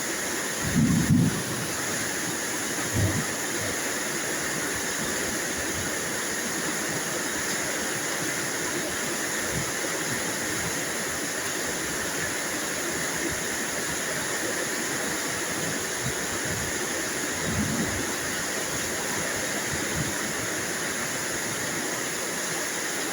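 Steady rain falling, an even hiss, with a few brief low thumps near the start and once more late on.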